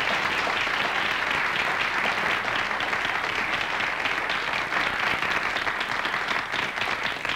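Audience applauding steadily, beginning to fade right at the end.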